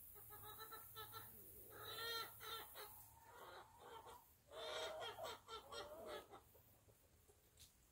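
Faint chicken clucking in three bouts of calls, dying down over the last couple of seconds.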